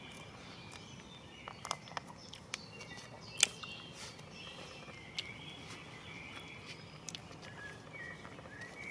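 Birds singing faintly in the background, with scattered clicks and crinkles of crackers and ration packets being handled. The loudest is a single sharp snap about three and a half seconds in.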